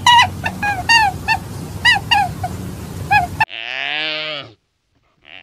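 Animal calls: a rapid series of short, pitched honking calls, three or four a second, over a steady low hum. About three and a half seconds in it cuts to a single longer, lower call from a different animal, and a faint call follows near the end.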